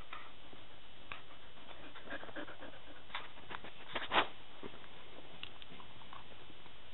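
A dog breathing and making small mouth noises close to the microphone as it noses at a hand petting it, with soft rustles and one short, sharper noise about four seconds in.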